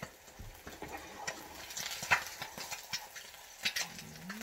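Spatula clicking and scraping against a frying pan as food is stirred: irregular taps of varying loudness over a faint hiss of frying.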